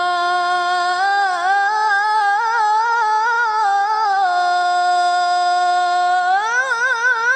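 A boy's high voice reciting the Qur'an in the melodic tilawah style into a microphone. It holds long, drawn-out notes with wavering ornaments, keeps one note steady for about two seconds in the middle, then climbs into a new ornamented phrase near the end.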